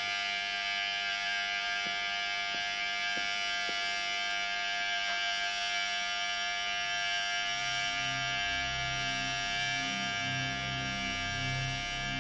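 Electric hair clippers buzzing steadily as a man's head is shaved. From about seven seconds in, low pulsing tones sound underneath.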